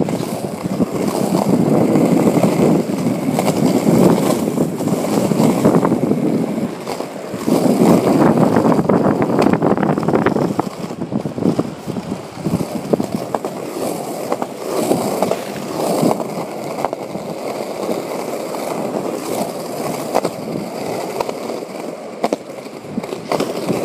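Skateboard wheels rolling on a concrete street: a steady rough rumble broken by short clacks as the wheels cross cracks and joints in the pavement, louder in the first ten seconds or so.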